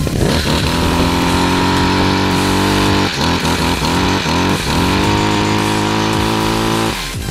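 Stihl gas hedge trimmer's small engine revving up from idle, dropping back briefly about three seconds in and climbing again, then held at high revs until it falls off near the end.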